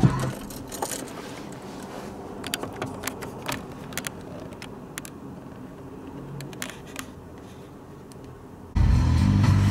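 Low in-car noise from a moving car, with scattered sharp clicks and ticks. Near the end, loud music with guitar cuts in abruptly.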